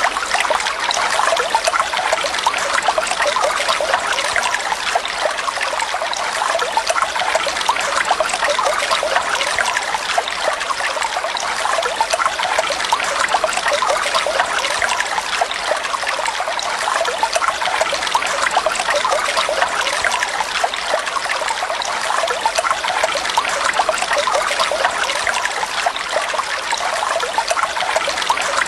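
Flowing water running steadily, without a break or change.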